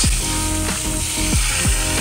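Background music with held synth notes and repeated sliding bass drops, over a steady hiss of water spray from a pressure-washer wand.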